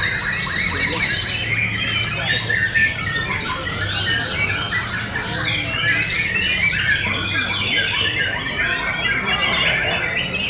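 White-rumped shamas (murai batu) singing, a dense run of overlapping whistles, chatter and chirps with no break.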